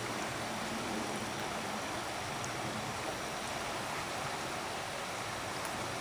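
Steady rush of a shallow creek running over rocks.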